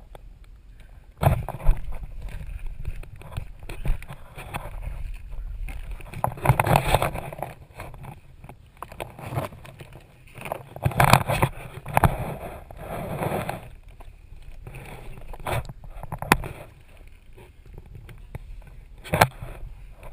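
Someone crawling through a crawlspace: irregular rustling and scraping over the dirt floor and sheeting, with a few sharp knocks.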